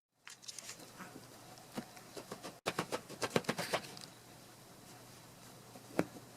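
Quick clicking and scratching of a small dog's claws as a Chihuahua scrabbles and moves about, busiest in a rapid run a little under three seconds in, with one sharper knock about six seconds in.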